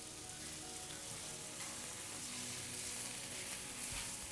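Sliced peppers, carrots and other vegetables sizzling in a hot oiled frying pan as they are stir-fried with a spatula, a steady frying hiss.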